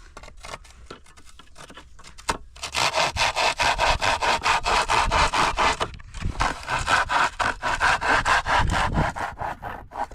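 Handsaw cutting through wood in quick, even back-and-forth strokes. The strokes are light at first, then louder from about two and a half seconds in, with a short pause around six seconds.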